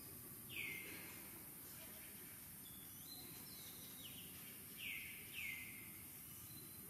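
Short, high chirping calls that slide downward in pitch: a clear one about half a second in, fainter ones around the middle, and two close together near the end. They sit over a steady low background hiss.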